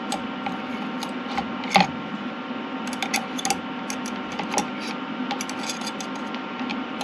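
Metal fork clinking and scraping against an engine thermostat in a plastic cup of hot water: scattered small clicks, one sharper knock about two seconds in, over a steady background hum.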